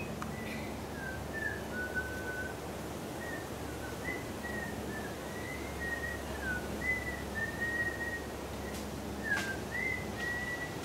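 A string of clear whistled notes, some held steady and some sliding up or down, wandering between two close pitches and coming every half second or so throughout.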